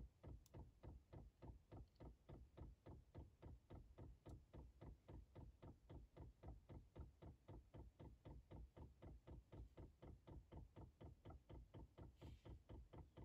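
Faint, rapid, even ticking of a Chinese diesel parking heater's solenoid fuel dosing pump, roughly four to five clicks a second, as it primes the empty fuel line.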